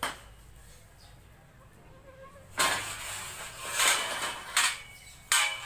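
Scrap iron clanking and banging as it is loaded. There are four loud metallic crashes in the second half, and the last one rings.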